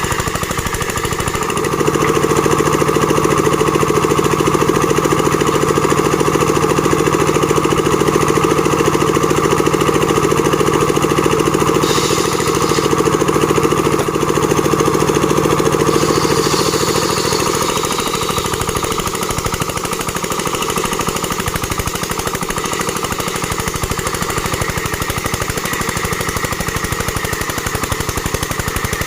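Engine-driven plank-making machine running with a fast, rattling pulse. It runs louder and deeper from about two seconds in until about seventeen seconds, then eases back to a lighter steady run.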